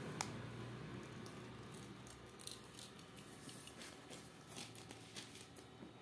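Alexandrine parakeet chicks eating seed: faint, irregular small clicks and cracks of beaks husking seeds and pecking, coming more often from about two seconds in.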